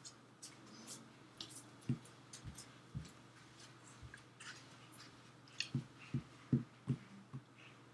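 Scattered soft clicks and dull thumps from a person signing: hands striking and brushing against his body and clothes, and mouth smacks. The thumps come in a brief cluster a couple of seconds in and a denser run of five near the end.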